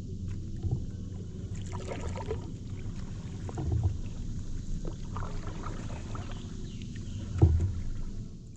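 Paddle strokes dipping and splashing in the water beside an inflatable paddleboard, with drips from the blade, over a steady low rumble. The loudest splash or knock comes about seven and a half seconds in.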